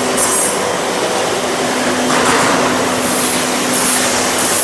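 Automatic sandblasting machine running: a loud, steady hiss of blasting with a steady hum beneath it, the hiss swelling about two seconds in.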